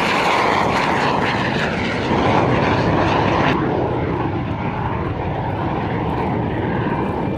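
Lockheed T-33 jet trainer's single turbojet engine running in a flypast, a loud, steady rushing noise. About three and a half seconds in the high hiss cuts off abruptly, and the noise goes on a little softer, with a sweeping whoosh as the jet passes and draws away.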